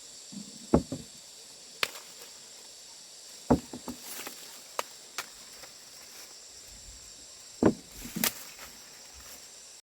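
A handful of dull thumps and lighter knocks at uneven intervals, like a tool striking or chopping, over a steady high insect drone.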